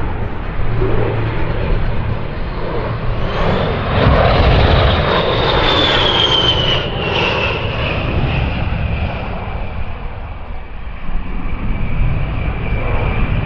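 USAF A-10 Thunderbolt II's twin turbofan engines on a display pass. The jet noise swells and then eases off, while a high engine whine falls in pitch as the jet goes by and then holds steady at the lower pitch.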